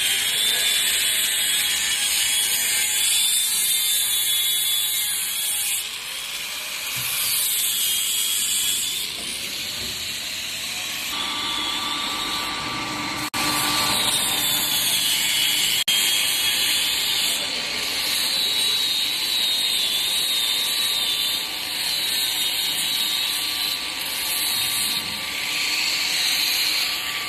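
Wood CNC router spindle running and cutting wood, a steady hiss with a high whine that wavers in pitch as the load changes. The sound shifts suddenly about six and thirteen seconds in, and a steady lower tone joins about eleven seconds in.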